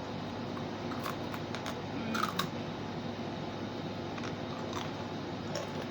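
Crunchy churro-shaped snack sticks being bitten and chewed: a scatter of crisp crunches, loudest about two seconds in, over a steady background hiss.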